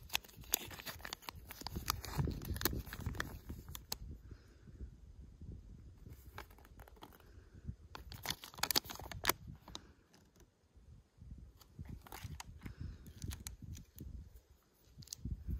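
Paper leaflet and packaging crinkling and rustling as they are unfolded and handled, in bursts of crackles, with light clicks of small plastic toy parts near the end.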